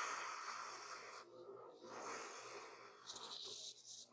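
A person slurping a mouthful of curly Taiwan-style noodles off chopsticks: two long slurps of about a second each, then a short, sharper one near the end.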